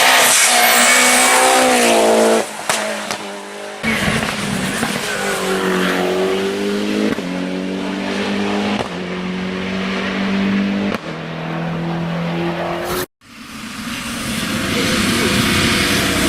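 Hill-climb race car engines accelerating hard, the pitch climbing and then dropping at each upshift several times over. The sound cuts abruptly between different cars about four seconds in and again near the end, with a split second of silence at the second cut.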